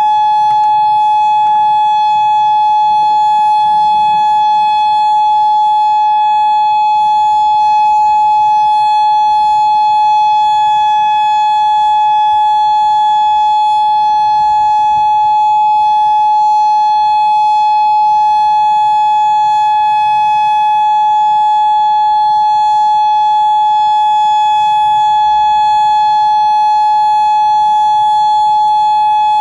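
Outdoor tornado warning siren sounding a loud, steady tone that holds one pitch without rising or falling, the alert signal for a tornado warning.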